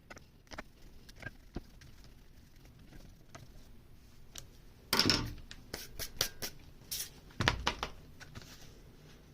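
Hand-handling noise from a random orbital sander and its sanding disc: scattered light clicks and taps, with two louder short scraping rustles about five and seven and a half seconds in, as the hook-and-loop disc is fitted to the pad.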